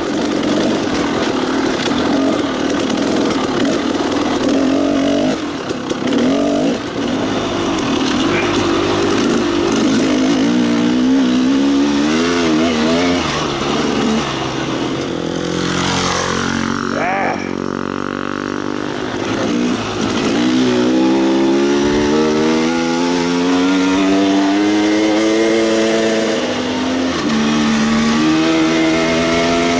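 Two-stroke dirt bike engine under way, its pitch rising and falling as the rider rolls on and off the throttle. It eases off about halfway through, then makes several long rising sweeps as it accelerates.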